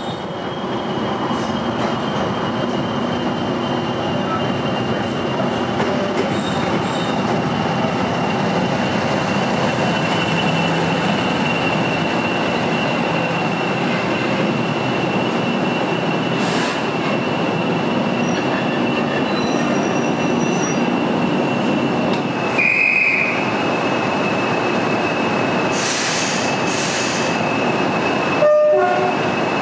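Passenger train of heritage coaches rolling slowly alongside the platform, a rumble of wheels on rail with a steady high-pitched squeal held over it for most of the time. A brief sharper squeak comes about three quarters of the way through and a short knock near the end.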